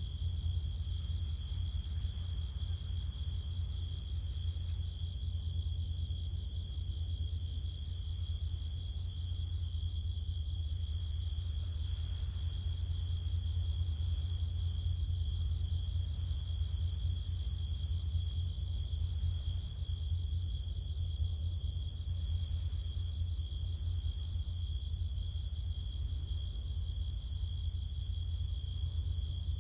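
Crickets singing: a steady high trill with a pulsing chirp above it, over a steady low rumble.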